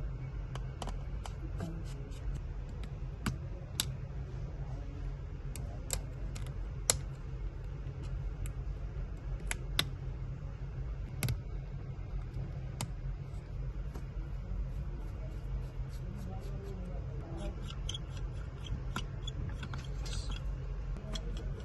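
Irregular sharp clicks and taps of small hand tools working on a MacBook Air M1 laptop during disassembly, coming thicker near the end, over a steady low hum.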